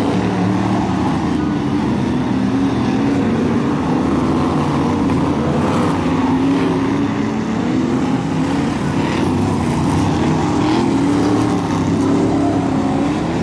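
Brisca F1 stock cars' V8 engines racing around a shale oval, several engines at once, their pitches rising and falling as the cars go through the turns and down the straights.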